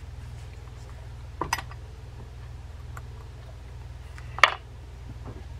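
Two short, sharp clicks as a small spinning-reel bearing and a metal pick are handled on the workbench: a light one about a second and a half in, and a louder one near the end. A steady low hum runs underneath.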